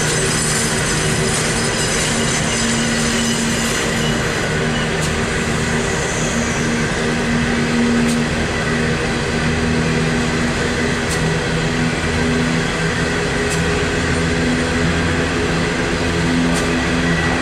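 A long coal train of steel hopper wagons rolling steadily past, its wheels running over the rails, with a low steady hum underneath and a few faint sharp clicks.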